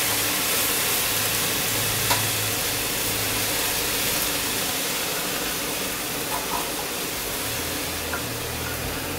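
Hot oil and fried saltfish base in a large pot sizzling as handfuls of chopped callaloo leaves are dropped in. A steady hiss that slowly fades.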